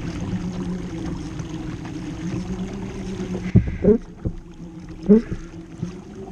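Water rushing along the hull of a fishing kayak as a hooked bluefin tuna tows it, with a steady low hum. Two short, sharp rising sounds come about three and a half and five seconds in.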